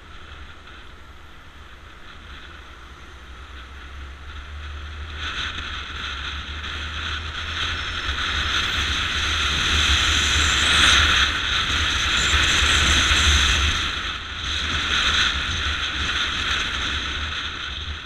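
Motorcycle riding along a street: a steady low engine rumble under wind rushing over the camera's microphone, the wind noise growing louder over the first half and easing a little near the end.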